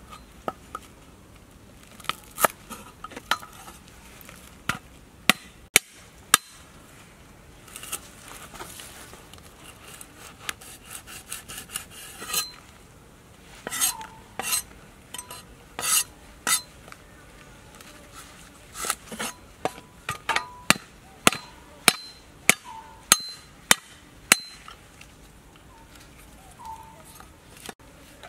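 Cleaver chopping lemongrass on a round wooden chopping block: irregular sharp knocks, sometimes in quick runs of several, sometimes single, with short pauses between.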